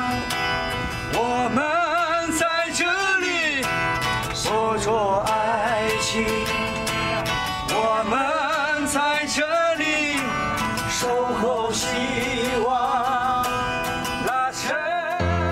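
A man singing a slow song to his own acoustic guitar strumming, holding several long notes with vibrato.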